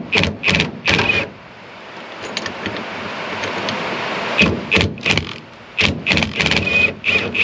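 Metal hardware clinking and rattling by hand in two runs of quick sharp strikes, each with a short metallic ring. A steady hiss of rain fills the gap between them.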